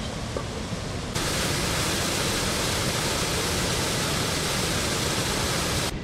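Düden waterfall's rushing water, a steady, even hiss. It jumps abruptly louder about a second in and cuts off just before the end.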